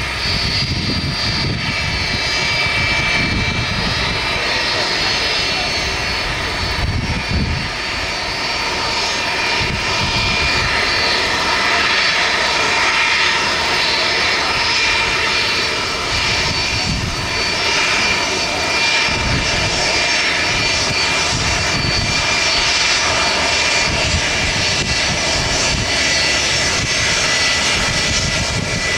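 Boeing 757-200's twin turbofan engines running at low taxi power as the jet rolls onto the runway: a steady jet whine with several held high tones over a low, uneven rumble.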